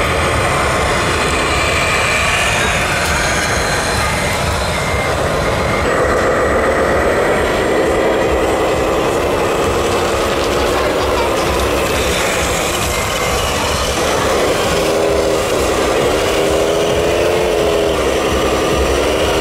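Radio-controlled model tractors driving through sand over a steady crowd hubbub. From about six seconds in, a motor whine holds its pitch and dips several times as the model works.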